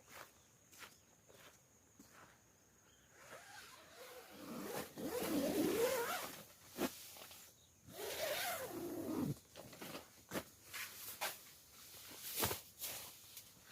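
Camping gear being handled: two longer rustling, scraping passes, the first about four seconds in and the second near eight seconds, with scattered short clicks between them.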